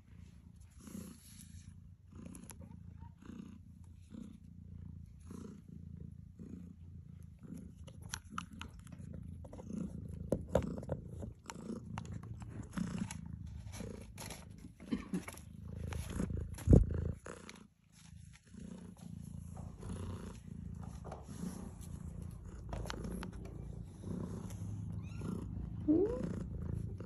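Lykoi cat purring close to the microphone, a steady low pulsing rumble, with scattered clicks and knocks of cats moving about and one sharp knock about two-thirds through. A short rising cat call comes near the end.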